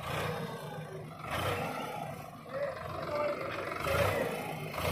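Sonalika tractor's diesel engine running under heavy load, its loudness swelling and easing, as it strains to pull a loaded trolley bogged in soft ground.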